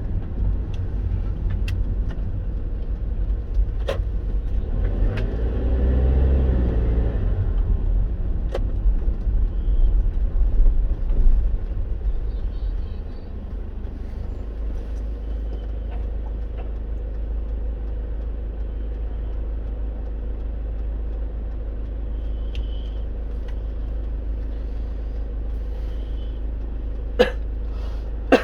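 Car driving, with steady low road and engine rumble heard from inside the cabin. It swells louder about five to seven seconds in, then settles to a steadier, lower hum from about halfway. A couple of sharp clicks come near the end.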